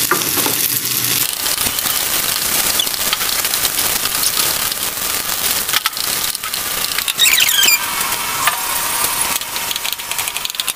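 Fried rice with egg and corn sizzling and crackling in a hot frying pan while a wooden spatula stirs and scrapes it.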